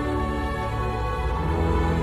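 Music: a sustained, steady chord held over a deep low drone.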